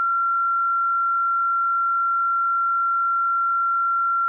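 Steady, unbroken high-pitched test tone, the kind played over television colour bars.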